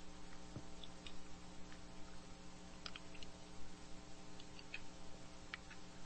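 Steady low hum with faint, scattered clicks and ticks.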